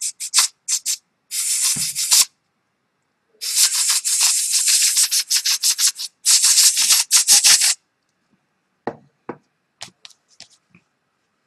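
An art pen being tried out: bursts of rapid, scratchy strokes with short pauses between them, then a few light clicks near the end.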